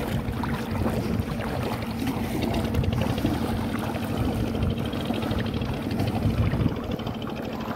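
Feet wading and splashing through shallow river water, with wind buffeting the microphone and a steady low drone underneath.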